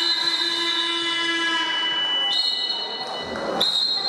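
Scoreboard horn sounding for about two seconds as the handball game clock runs out, ending the period, followed by two long, high referee whistle blasts in a large sports hall.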